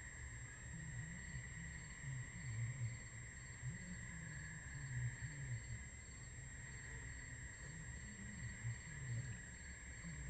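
Faint chirping of crickets or other night insects, a steady trill with a higher chirp repeating a few times a second, picked up by an outdoor den webcam's microphone along with a constant thin high tone.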